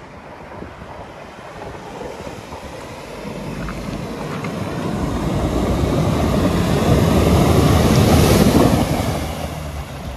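Mahindra TUV300 SUV with its 1.5-litre mHawk diesel engine driving through shallow water, tyres churning up splashing spray. The sound grows louder as the vehicle approaches and passes close by, is loudest about eight seconds in, then fades.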